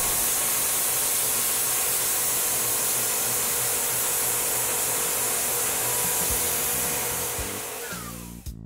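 Tormach 1100M CNC mill's spindle running at its maximum 7,500 RPM while a 1/8-inch four-flute carbide end mill takes a finishing pass, with a steady hiss over the cut. The sound fades away near the end.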